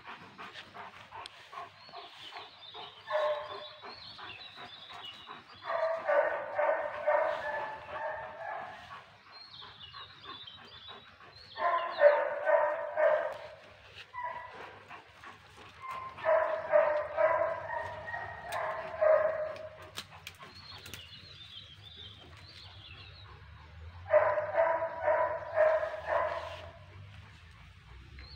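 A dog barking in several bouts of quick, repeated barks, each bout lasting one to three seconds with short pauses between.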